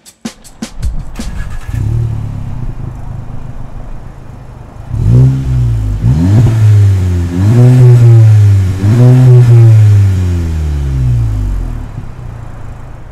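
Volkswagen GTI MK7's 2.0-litre turbocharged four-cylinder heard through an aFe 304 stainless steel cat-back exhaust with the rear muffler deleted. It idles steadily, then from about five seconds in is revved up and let fall back about four times, and settles to idle near the end.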